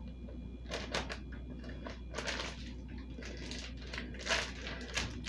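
Plastic zip-top freezer bag being pressed shut along its zipper seal, with a few short crinkles and rustles of the plastic.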